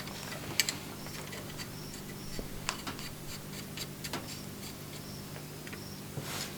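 Faint scattered clicks and light taps of hand work on a fuel-line fitting, over a steady low hum.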